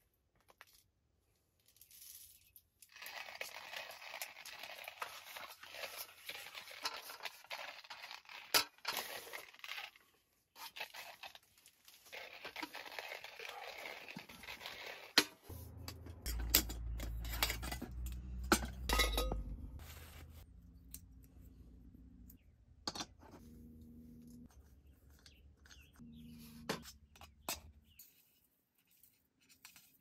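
Hand coffee grinder being cranked: a steady crunching grind of beans, broken once partway. It is followed by metallic clinks and taps as the grinder is knocked and emptied into a metal cup.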